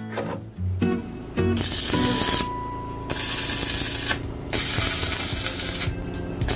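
Electric arc welding on a steel frame: the arc crackles and hisses in several bursts of about a second each, beginning a little after the start, over background music.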